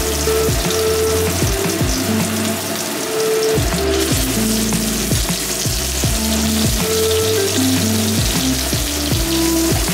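Oil sizzling steadily around batter patties shallow-frying in a rectangular tamagoyaki pan, over background music with a bass line.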